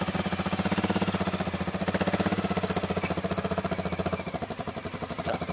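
ATV engine running at a steady idle with a rapid, even pulsing beat, the quad standing in river water up to its footrests.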